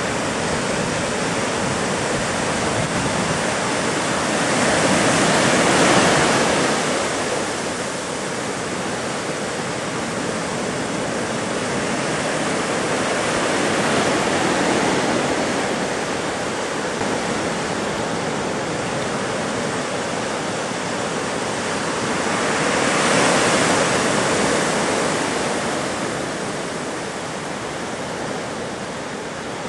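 Ocean surf: a steady rush of breaking waves and whitewater, swelling louder twice as bigger waves break.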